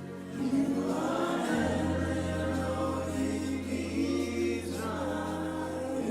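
Slow gospel worship music: voices singing together over sustained held chords, with a deep steady bass note coming in about one and a half seconds in.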